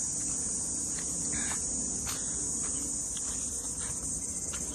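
A steady, high-pitched chirring chorus of insects, with a few faint clicks over it.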